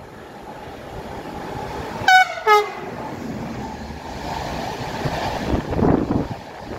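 Electric locomotive's horn giving two short blasts about two seconds in, the second lower in pitch. Behind it the approaching passenger train grows louder, with the rumble of its wheels on the rails as it passes below.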